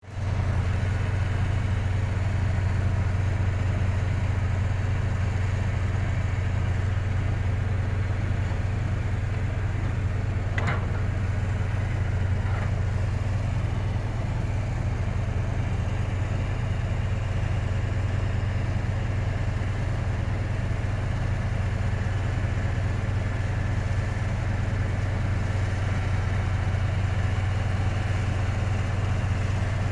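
Bulldozer's diesel engine running with a steady low hum. About ten seconds in there is a short squeak, and a fainter one two seconds later.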